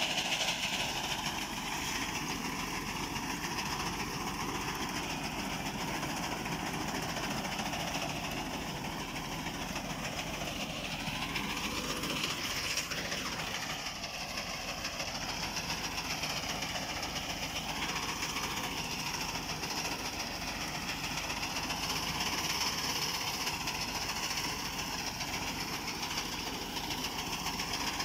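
Massey Ferguson 240 tractor's three-cylinder diesel engine running steadily under load through a straight vertical exhaust, together with its front-mounted reaper cutting standing wheat.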